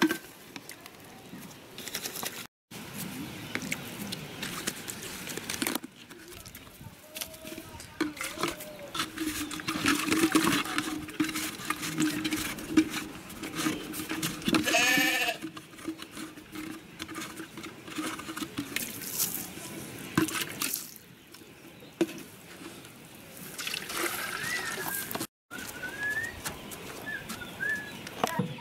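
Water poured from a plastic jug into a plastic cup, with a farm animal's bleating call about halfway through and a few high, wavering chirps near the end.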